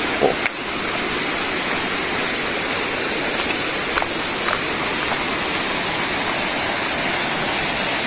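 Waterfall rushing steadily, with a few faint clicks.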